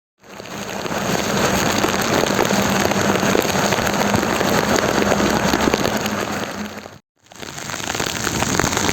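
Heavy rain falling on a surface: a dense, steady hiss thick with drop impacts. It fades in at the start and cuts out for a moment about seven seconds in.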